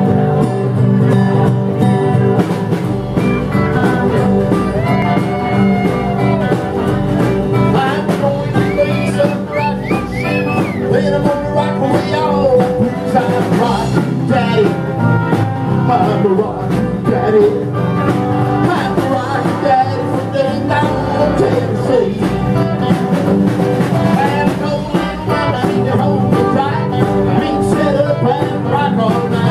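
Live rockabilly band playing a song: upright bass, acoustic guitar and electric guitar with a steady beat.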